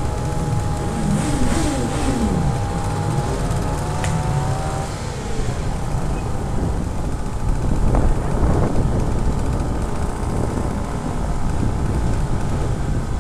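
Small vintage autocycle engines running steadily as they ride along in procession, their note dropping about five seconds in.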